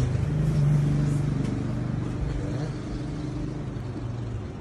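Low, steady motor hum, louder about half a second in and fading over the last couple of seconds.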